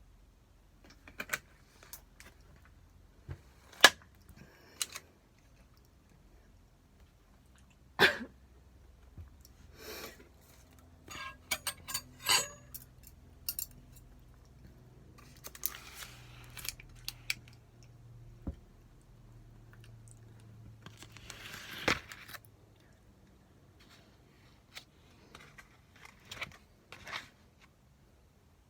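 Eating sounds from a takeout meal: scattered sharp clicks and clinks of utensils against dishes and plastic containers, some in quick clusters, with short bouts of rustling about halfway through and again a little later.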